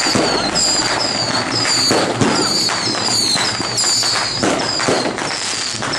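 Strings of firecrackers popping in a dense, continuous crackle. A high, falling chirp repeats about every three-quarters of a second over it.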